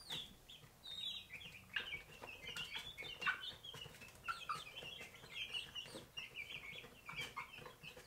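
A brood of young australorp chicks cheeping: many short, high peeps, overlapping and coming thick and fast, heard faintly.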